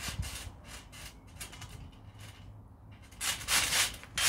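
A child bouncing on a trampoline, with rustling and soft thumps from the mat and frame. The sound gets louder near the end as he drops onto his back.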